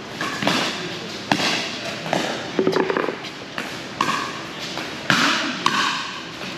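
Pickleball paddles hitting a plastic pickleball during a rally: a string of sharp pops, roughly one every second.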